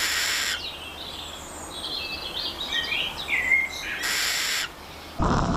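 A sleeping animal's squeaky, squawking snore: two short hissing breaths about four seconds apart, with high chirping squeaks between them.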